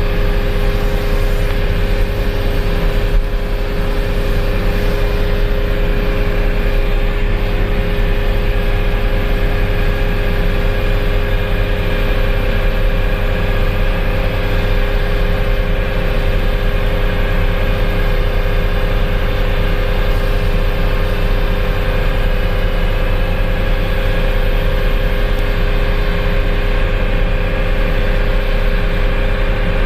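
A boat's engine running at a steady speed, a constant drone with an unchanging hum.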